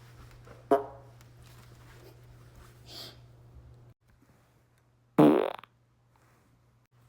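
Two farts: a short one under a second in, and a longer, louder one about five seconds in.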